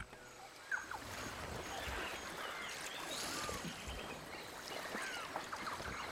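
Riverside ambience: a steady wash of running water with scattered short bird chirps.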